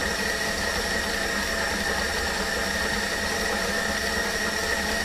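Stand mixer motor running at one steady speed with a high, even whine, creaming butter and sugar.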